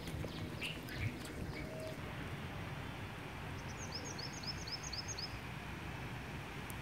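Steady low outdoor background noise, with a small bird giving a few chirps near the start and a quick run of about eight short, high chirps about three and a half seconds in.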